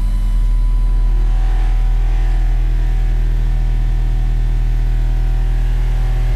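Steady 40 Hz test tone played loud through two Bomber Bicho Papao 15-inch subwoofers in a dual slot-ported box, held at one pitch. The amplifier is being pushed hard at a frequency where the system's impedance falls below 2 ohms.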